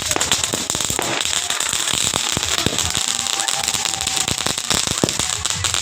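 Fireworks and firecrackers going off in a dense, continuous crackle of many sharp bangs.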